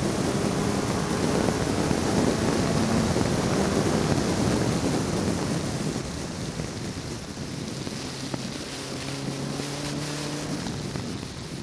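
Ford Zetec four-cylinder engine of a Westfield sports car running at speed, heard from the open cockpit with heavy wind noise on the microphone. It gets quieter about halfway through, and a steadier lower engine note comes through near the end.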